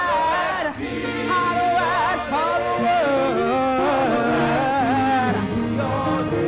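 A lead singer singing a gospel chorus in a winding, ornamented melody over band accompaniment with a steady bass line.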